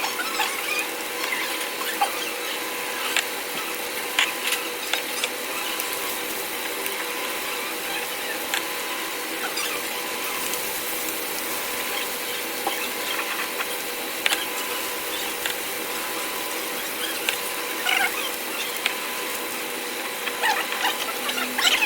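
Close-miked eating sounds: chewing and mouth clicks scattered irregularly over a steady hiss.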